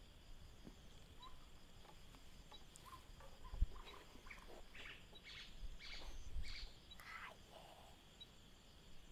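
Birds chirping in a short run of quick calls over a faint, steady insect drone, with a single low thump about three and a half seconds in.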